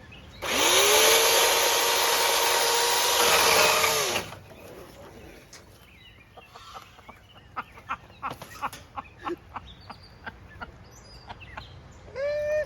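A chainsaw runs at full speed for about four seconds, its pitch climbing as it starts and dropping away as it stops. After it come scattered light cracks and rustles of branches and twigs.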